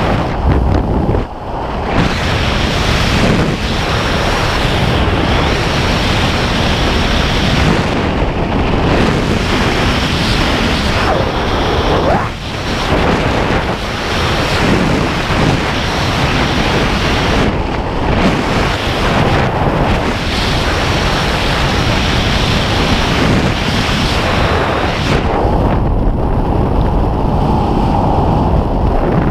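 Loud, steady wind rushing over a helmet camera's microphone during a skydive, turning duller for the last few seconds.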